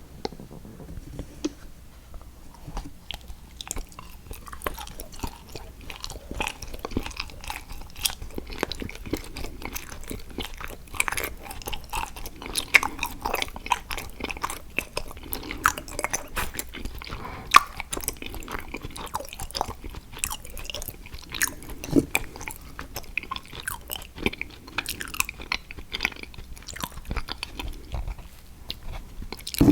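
Close-miked biting and chewing of an edible chocolate picture frame: a steady run of crisp crunches and crackles, irregular in rhythm, with a few louder bites.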